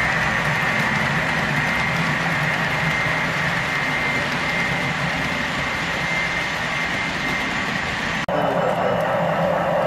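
Model freight train running past on the layout's track: a steady rolling rumble with a constant high whine. A little over eight seconds in, the sound cuts abruptly to a different steady running drone.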